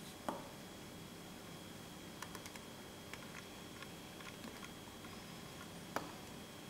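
A few small, sharp clicks and taps from fly-tying tools being handled and set down: one just after the start, a cluster of light ticks a couple of seconds in, and another near the end. Underneath is a faint steady room hum with a thin high tone.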